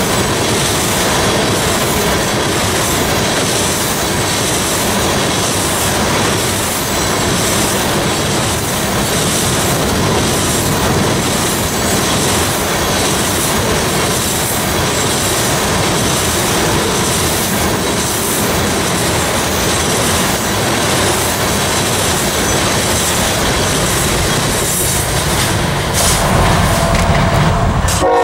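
A freight train of tank cars rolling past close by: the steady rumble of steel wheels on rail, with clicking as wheels cross rail joints and a thin, steady wheel squeal.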